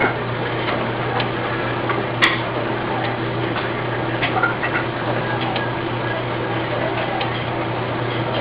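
Inkjet bat printer running: a steady hum and hiss with scattered light ticks, and one sharper click about two seconds in.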